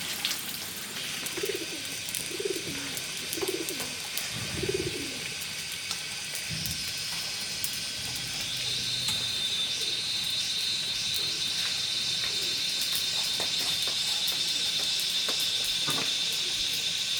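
A pigeon or dove cooing: four low coos about a second apart, over a steady high-pitched hiss that grows louder about halfway through.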